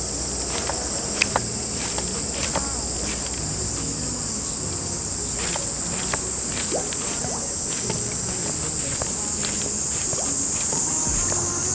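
Steady, high-pitched chorus of insects buzzing without a break, with scattered faint clicks and ticks.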